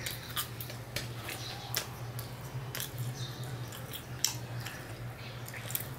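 A person chewing a mouthful of egg-fried bread close to the microphone: irregular wet mouth clicks and smacks. A steady low hum runs underneath.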